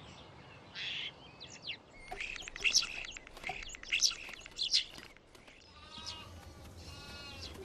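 A common starling singing, a quick run of chirps, clicks and whistles. Lambs start bleating about six seconds in.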